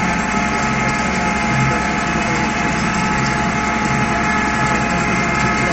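Case IH 1056 XL tractor's six-cylinder diesel engine running steadily, heard from inside the cab while pulling a harrow. It is an unbroken drone with a constant whine over it.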